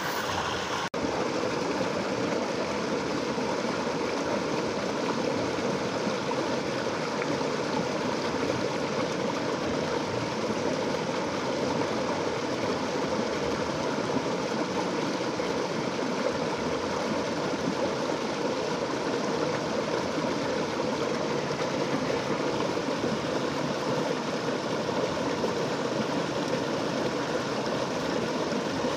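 Steady rushing of a small waterfall spilling over rocks into a river pool, with a brief dropout in the sound about a second in.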